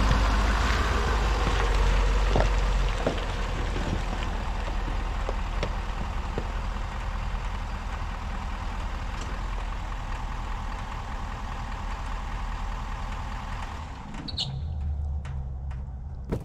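Ford F450 pickup truck's engine running as the truck pulls up, loudest in the first few seconds, then settling to a steady idle.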